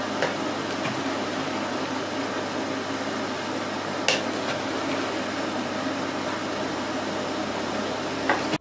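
Lake fountain aerator spraying water: a steady rushing splash with a low hum beneath, broken by three short light clicks.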